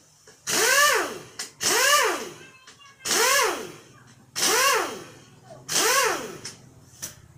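Hand-held power drill/driver running in five short trigger pulls on the bolts of a Yamaha Lagenda 115 Fi motorcycle engine being dismantled, its motor whining up in pitch and back down on each pull, with small metal clicks between them.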